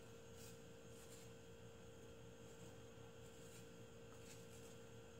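Near silence: room tone with a steady hum, and a few faint scrapes of a chef's knife paring the edges off a peeled potato held in the hand.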